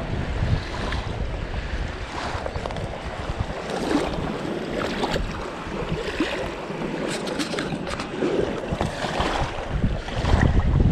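Wind noise on the microphone over small waves lapping at a sandy river edge, with short splashes in the middle as a shovelnose sturgeon is let go in the shallows. The wind rumble is heaviest near the end.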